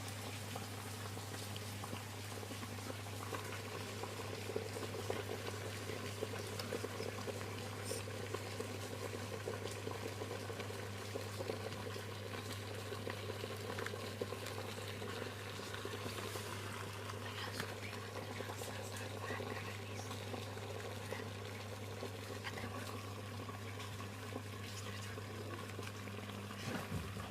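Water heating toward a boil in a homemade water heater: continuous bubbling and crackling over a steady low hum.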